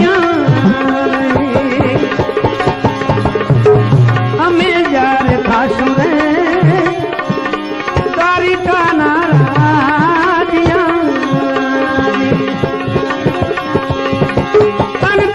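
Instrumental interlude of a devotional bhajan: tabla keeping the rhythm while a melodic instrument plays an ornamented, wavering line over a steady drone.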